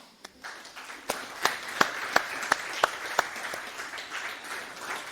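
A small audience applauding, with one clapper close by standing out at about three claps a second; the applause fades near the end.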